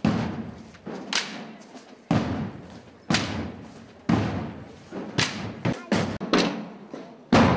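Large procession drums beating a slow march: one heavy stroke about every second, each ringing and dying away, with a few lighter strokes in between a little after halfway.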